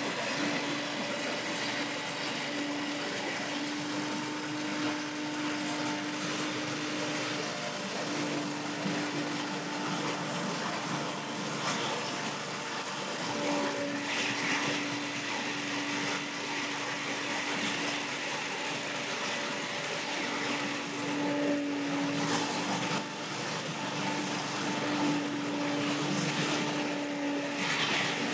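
Billy Goat Hurricane X3000 leaf blower's Vanguard V-Twin engine running steadily, with the rushing air blast of its fan.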